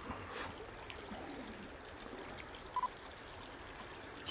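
Faint, steady running water of a stream. About three seconds in comes a short double electronic beep, a camera's focus-confirmation beep, and at the very end a sharp click of the camera shutter.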